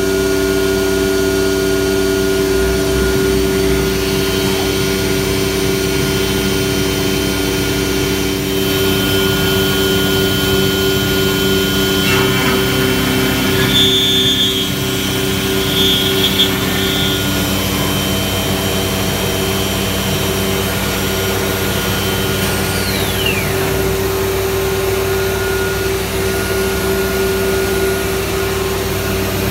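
Techno HDS CNC router's spindle running with a horizontal aggregate, routing slots into the edge of a plywood panel, a steady high machine whine with dust extraction running. The cut grows briefly louder around halfway through, and a high whine falls in pitch about two-thirds through.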